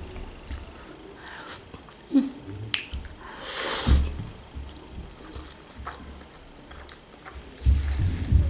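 Close-miked chewing of spaghetti, with wet mouth smacks and small clicks. About three and a half seconds in comes one loud slurp as a noodle strand is sucked in, and near the end a muffled rubbing as a napkin is wiped over the mouth.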